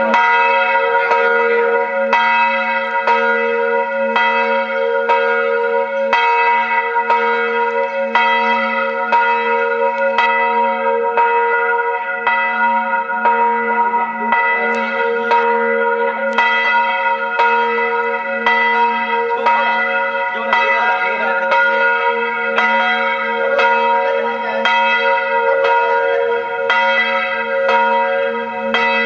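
A new set of church bells, 1550 kg in all, ringing the noon bells: steady strikes about two a second, their tones ringing on and overlapping into a continuous hum.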